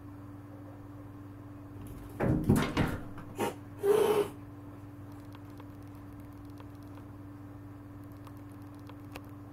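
Two cats batting at a windowpane from either side: a quick cluster of thumps on the glass about two seconds in, one more knock, then a short hiss about four seconds in. A low steady hum runs underneath.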